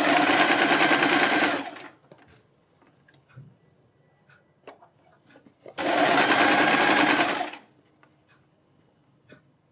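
Domestic electric sewing machine stitching a seam in two short runs of about two seconds each, with faint clicks and fabric rustling between the runs as the cloth is handled.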